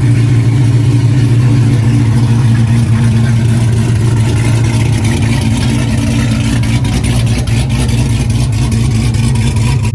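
LS V8 engine in a Dodge Charger Hellcat running steadily at a constant speed, without revving.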